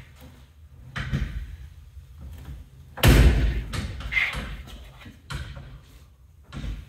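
Metal door on a Peterbilt 379 sleeper bunk being swung shut and slammed, with one loud slam about three seconds in. Lighter knocks come about a second in and again near the end.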